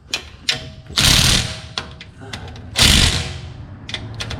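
Power wrench running bolts in three short bursts about two seconds apart, with a few small metallic clicks between.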